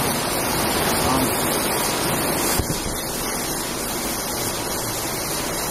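Automatic rotary bottling machine running, its star wheels carrying plastic bottles, with a steady rushing mechanical noise that eases slightly about two and a half seconds in.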